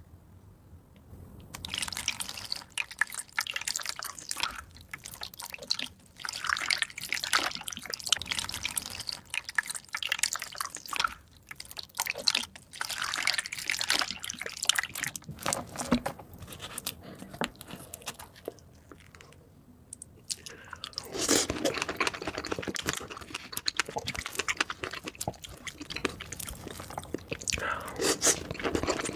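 Milk poured from a jug over a strawberry sponge cake in a glass dish, splashing and dripping. About two-thirds of the way in this gives way to close-miked wet chewing and crunching of cake and strawberries.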